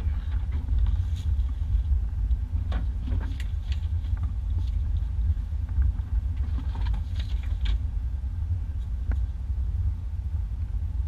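1991 Isuzu Trooper driving on a rough dirt two-track, heard inside the cab: a steady low rumble from engine and road, with scattered knocks and rattles over the bumps.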